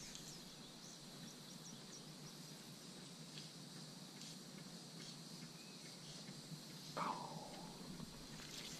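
Faint open-air pond ambience: small birds chirping and a steady insect hum. About seven seconds in there is one brief, louder falling sound.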